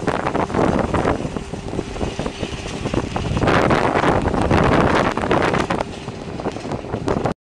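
Skid-steer loader engine running while a large round disc attachment on its front drags over loose gravel and dirt, a dense crunching and scraping of stones. It grows louder from about halfway and cuts off suddenly near the end.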